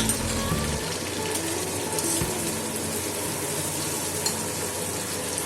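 Prawns and chopped onion sizzling steadily in hot oil in a frying pan.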